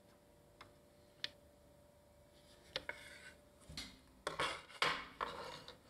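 A couple of faint ticks, then irregular rubbing and scraping that grows louder after a few seconds: a circuit board being handled and slid across a wooden work surface.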